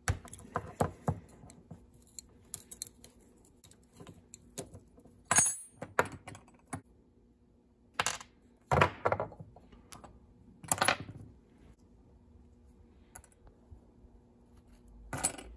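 Small steel and aluminium parts of a Shimano 600 SIS rear derailleur being handled and taken apart: scattered light clicks and clinks of a hex key, bolt and spring, with a brief metallic ring about five seconds in and a few louder handling noises.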